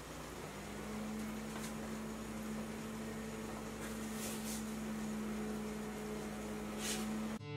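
Faint crinkling of a dried corn husk being folded around a filled tamale, a few soft rustles over a steady low room hum with a faint tone.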